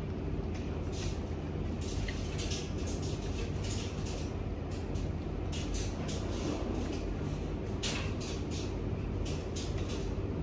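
Dragon fruit being chewed close to the microphone, with irregular crisp crunches from its small seeds, over a steady low hum.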